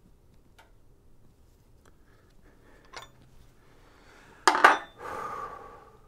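A few faint ticks, then, about four and a half seconds in, a loud clank and clatter of a metal hand tool striking metal, with a short rattle dying away after it.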